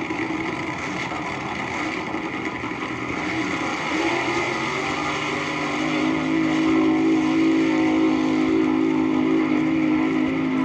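A nitro-burning AA fuel dragster engine running, played back from a vinyl record. About halfway through it settles into a steady held note.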